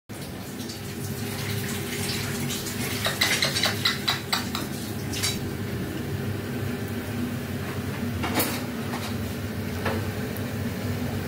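Light metallic clinks and rattles of a wire cage as parakeets clamber about in it, in scattered clicks that cluster about three to four and a half seconds in, over a steady low hum.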